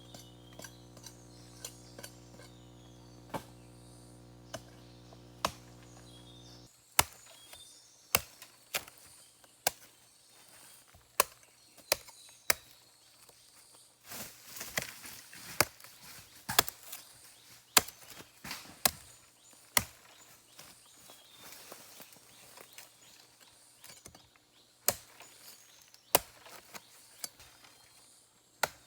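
Sharp, irregular chopping knocks, roughly one a second, like a blade striking wood or plant stems, with a denser noisy patch about halfway through. For the first several seconds a steady hum lies underneath and cuts off suddenly.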